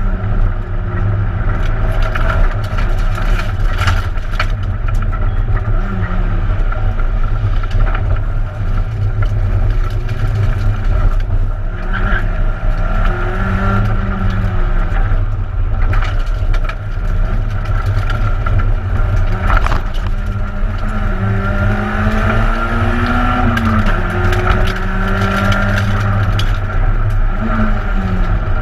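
Peugeot 106 1600 rally car at full speed, heard from inside the cabin: the engine revs rise and drop again and again as it is driven through the gears, over a loud, heavy road and drivetrain rumble. Occasional sharp clicks and rattles are heard above it.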